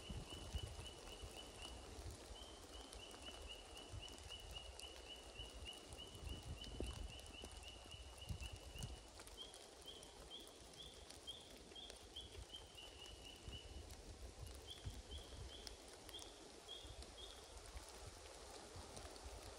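Faint runs of short, high chirping notes, about three a second, each run lasting several seconds, from an unseen calling animal. Under them is a low, uneven rumble.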